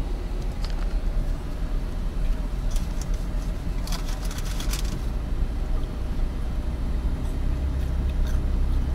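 Low, steady rumble of engine and tyre noise heard from inside a moving Jeep's cabin, with a few brief clicks about four seconds in.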